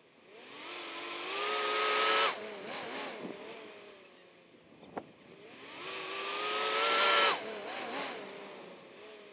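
Nissan Patrol TB48's 4.8-litre straight-six petrol engine revving hard twice as the four-wheel drive pushes through deep snow. Each time the revs climb for about two seconds, hold, then drop off suddenly as the throttle is released, with a hiss rising alongside. A single sharp click sounds between the two.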